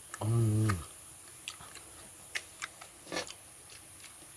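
A man's closed-mouth "mmm" of relish, under a second long and falling slightly in pitch, then soft chewing and scattered mouth clicks as soft cooked pumpkin is eaten.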